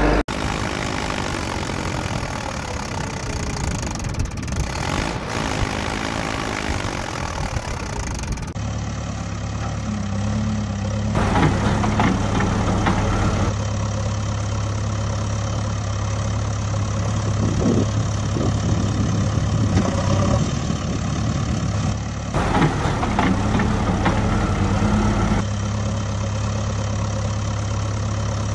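Engine idling sound of a heavy machine, laid over a toy JCB backhoe loader scene: a steady low hum that changes abruptly in tone several times where clips are joined, with stretches of rapid clattering in the middle.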